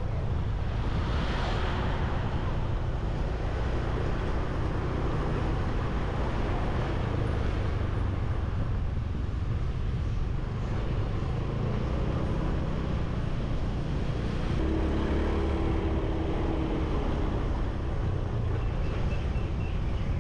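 A motorbike running through street traffic, with wind rumbling on the microphone. About fifteen seconds in, a stronger droning engine note stands out for about two seconds.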